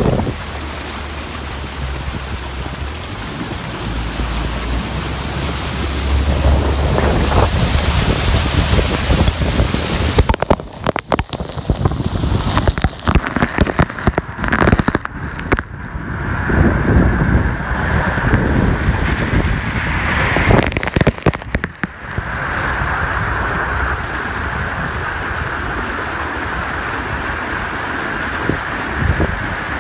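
Flood water rushing and spraying off a vehicle's wheels as it drives through a deeply flooded street, a dense steady hiss. About a third of the way in it turns choppy and gusty for around ten seconds, then settles back into a steadier rush of spray.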